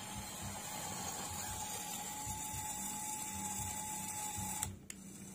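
Small electric motor and gearbox of an RC miniature truck whirring steadily as it drives, with a thin high whine; the whine stops sharply with a click near the end.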